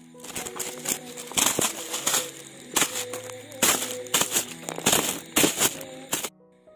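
Plastic bag crinkling and rustling in loud, irregular bursts as a freshly caught pearl spot (karimeen) is handled into it, stopping suddenly near the end. Background music plays underneath.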